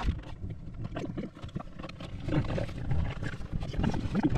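A golden retriever making several short, low vocal sounds close to the microphone, over low rumbling wind noise.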